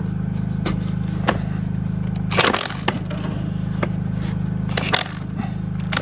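Hand tools knocking and clinking on the Cletrac's rusty metal and bolts: a few sharp knocks, with a longer, louder scraping clatter about two and a half seconds in. A steady low hum runs underneath.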